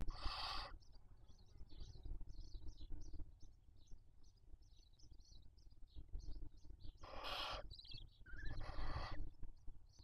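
Barn owl chicks giving rasping, hissing food-begging calls at the nest. There are three bursts of about half a second each: one at the start and two close together near the end. Faint high chirping runs underneath.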